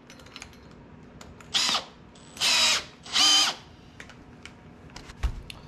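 Cordless drill fitted with a 1¼-inch hole saw, run in three short trigger bursts. Its motor whine rises and falls with each burst, with light clicks and knocks between them.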